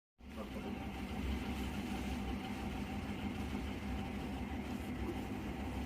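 Steady low mechanical hum with a faint steady high tone.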